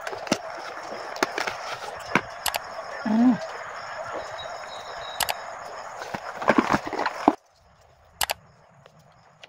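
Clicks and taps from handling the small wireless microphone kit, over a steady background hiss. A flurry of clicks comes just before the hiss cuts off abruptly about seven seconds in.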